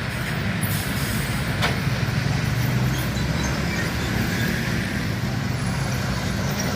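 A large road vehicle's engine running steadily amid traffic noise, with one short click about a second and a half in.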